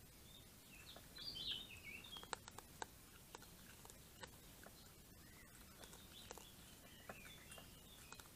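Faint warbling song of a songbird, loudest about a second in and returning near the end. Scattered sharp clicks and taps come from a raccoon picking dry kibble out of a stainless-steel bowl and chewing it.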